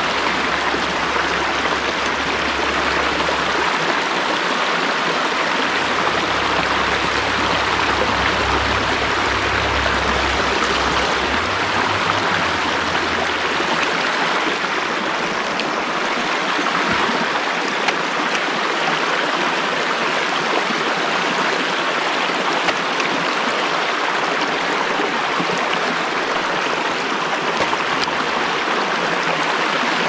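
Small mountain stream running: a steady, even rush of flowing water, with a low rumble under it for about the first half.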